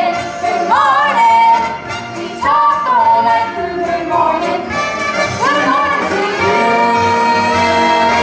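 Young stage singers performing a musical-theatre song with instrumental accompaniment. From about six and a half seconds in, they and the accompaniment hold one long final chord.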